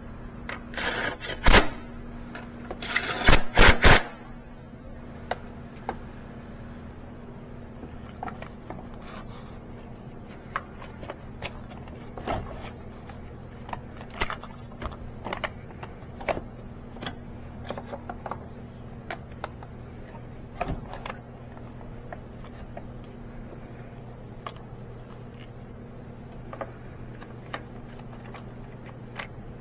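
Metal hand tools and car parts clinking and scraping during reassembly work, with two loud bursts of rattling about one and three seconds in, then scattered light clicks and knocks over a steady low hum.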